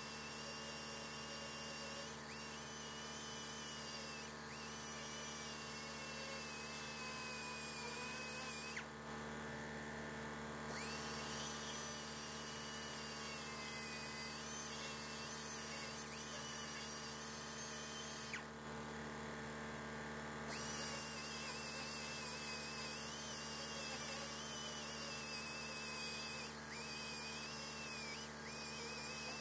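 Small high-speed grinder whining as it grinds down a weld on sheet-metal bodywork, its pitch wavering as it bears on the metal. The whine stops briefly twice, about nine and nineteen seconds in, while a steady hum carries on underneath.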